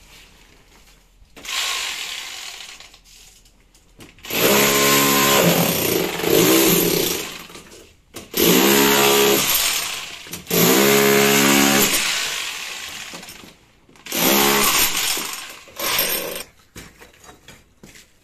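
SDS rotary hammer with a chisel bit breaking up a brick and plaster wall, run in about six bursts of one to four seconds with short pauses between. It stops near the end, leaving a few small clicks of rubble.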